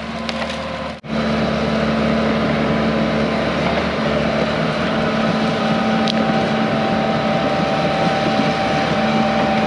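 Diesel engine of a John Deere 120 excavator running steadily with a constant hum, after a brief dropout about a second in.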